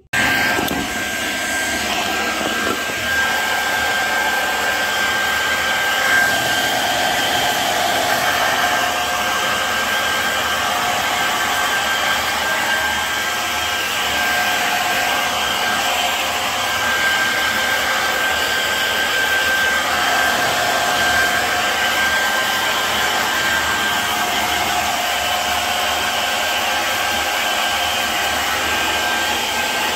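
Hair dryer switched on and running steadily, drying a wet dog's fur after its bath, with a thin steady whine over the rush of air.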